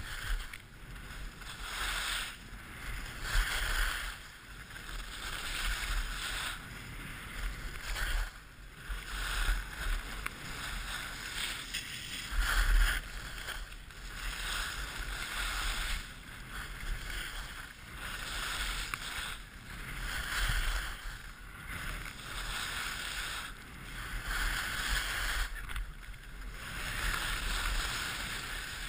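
Skis carving down a groomed piste: a hiss of scraping snow that swells and fades with each turn, roughly one turn every two seconds.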